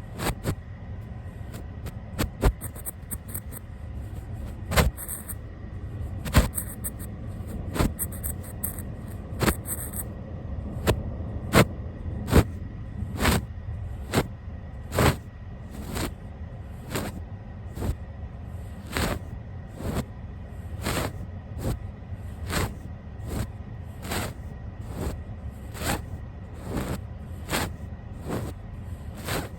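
Brush bristles swept across the camera and its microphone in repeated strokes. They come irregularly, with crackling, at first, then settle into an even rhythm of about one stroke a second.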